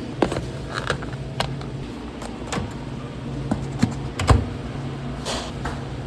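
A dozen or so scattered sharp clicks and knocks, the loudest a little past four seconds in, over a steady low hum.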